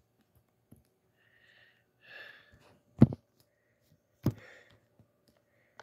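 Handling noise from a phone camera being moved around: two sharp knocks about a second apart, with faint breathy puffs before them.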